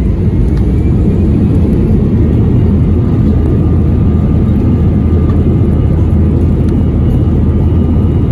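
Jet airliner cabin noise while rolling on the runway: a steady, loud, deep rumble of engines and wheels with a constant low hum.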